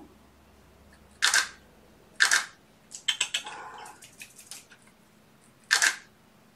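DSLR camera shutter firing three times, each a short, sharp clack: once about a second in, again a second later, and once more near the end. In between come a quick run of lighter clicks and rattles.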